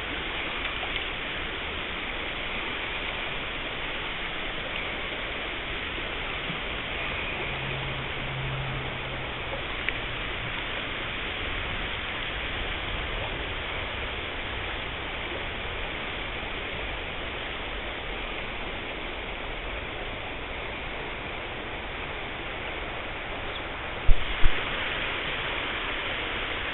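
Steady rush of a shallow, rocky stream riffle flowing past. Two sharp knocks come a couple of seconds before the end.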